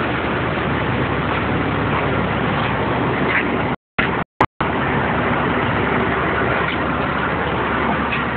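Steady engine and machinery noise around a hopper-bottom trailer being unloaded. It cuts out briefly twice about four seconds in.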